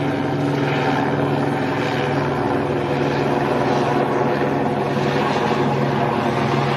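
Steady low engine drone with a constant hum and a haze of running noise, unbroken throughout.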